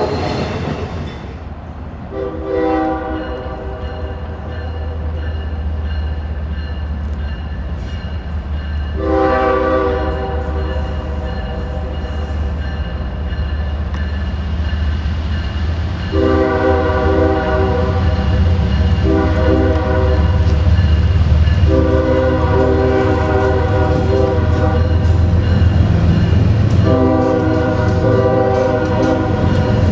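Diesel locomotive's air horn sounded in a series of blasts, some long and some short, several notes together in a chord. Underneath runs the train's steady low rumble.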